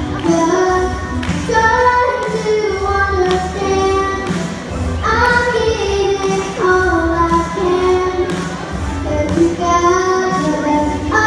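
A young girl singing into a microphone over backing music, in sung phrases of a second or two each.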